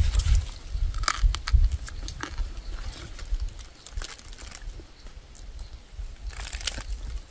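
A person chewing and crunching roasted rat, with crisp crackling clicks as the charred meat is pulled apart by hand. A few dull low thumps come in the first two seconds.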